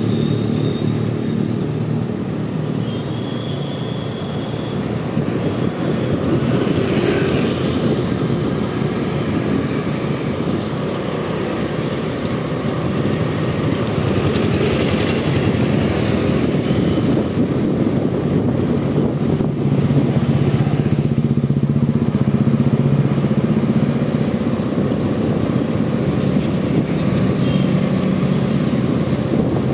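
Motorcycle or scooter engine running steadily while riding through city traffic, with road noise.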